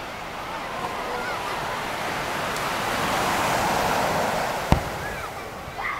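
Surf washing onto the beach, swelling and then fading, with a single firework shell bursting in one sharp bang near the end, its sound arriving seconds after the flash. A few faint voices call out.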